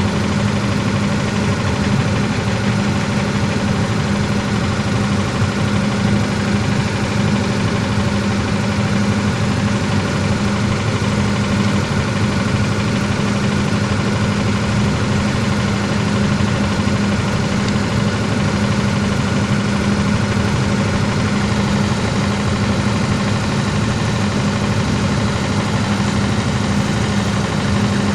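A machine engine running steadily at a constant speed, a continuous even drone with a strong low hum that does not change.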